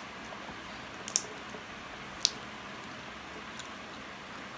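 Close-up eating sounds of a person chewing food, with two sharp, wet mouth clicks about a second apart over a steady hiss.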